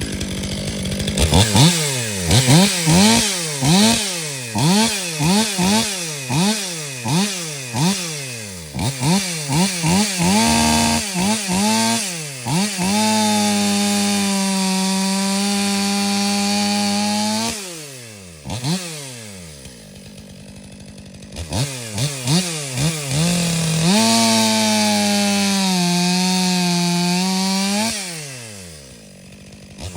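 Stihl MS 500i two-stroke chainsaw revving in a string of quick throttle blips, then held at full throttle twice for several seconds at a time, the pitch sagging slightly while it cuts wood, dropping back to idle between and after the cuts.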